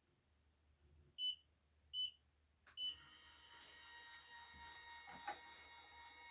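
Electronic powder dispenser beeping three times, then its motor starting just under three seconds in and running steadily as it dispenses a charge of rifle powder.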